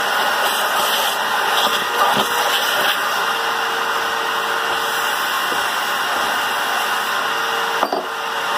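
Shop vacuum running steadily with a constant rushing noise. A steady hum joins in about three seconds in, and a brief knock comes near the end.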